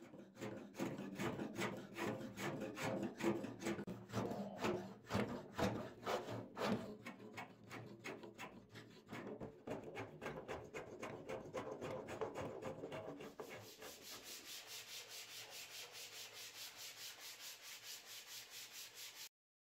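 Wooden axe handle being shaped by hand: quick, uneven scraping strokes of a hand tool along the wood. About two-thirds through it changes to a steady back-and-forth rub of an abrasive strip drawn around the handle, hissier and more even, about three strokes a second.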